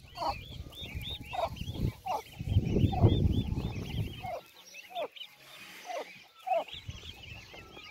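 A brood of week-old turkey poults peeping in quick, continuous high chirps, with lower falling calls from the turkeys every half second or so. A low rumble runs under it from about two seconds in to the middle.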